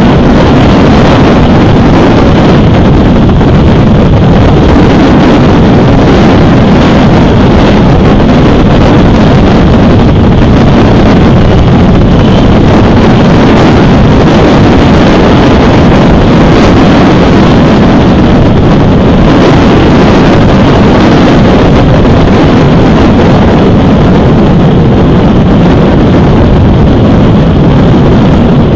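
Wind buffeting the outdoor nest camera's microphone: a loud, steady, low noise that stays unbroken throughout.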